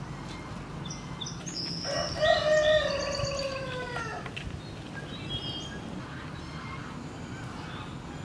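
A rooster crowing once, a single long call of about two seconds starting about two seconds in and dropping slightly in pitch at its end, with small birds chirping briefly around it.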